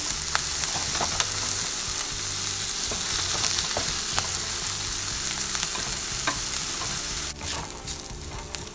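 Diced onions sizzling as they fry in butter and oil in a nonstick pan, stirred with a wooden spatula that clicks and scrapes against the pan. The sizzle turns quieter near the end, when the onions are browned.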